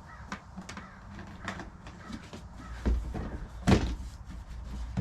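Hollow plastic parts of a nutcracker figure being handled and fitted together, with scattered light clicks and rattles, low thumps around three seconds in and one louder knock just after.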